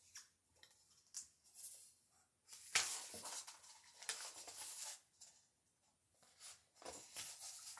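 Pages of a hardcover picture book being opened and turned: a soft papery rustle, louder for about two seconds starting near three seconds in, with a few light taps and brushes around it.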